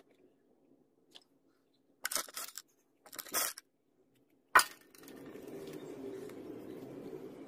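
Hands digging into and pressing moulding sand in a metal casting flask: two brief scraping sounds, then a sharp tap about four and a half seconds in. A steady low hum comes in just after.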